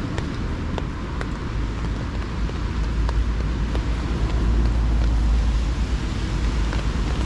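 Low rumble of road traffic, swelling about a third of the way in and holding, with a few faint clicks from a gas canister being fitted to a camping stove hose.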